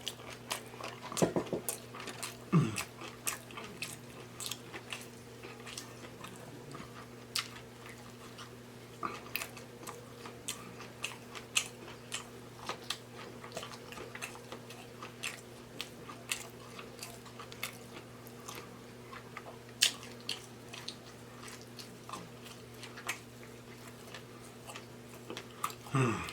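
Close-miked eating of seafood boil food in sauce: irregular wet chewing, biting and lip-smacking clicks, with a steady low electrical hum underneath.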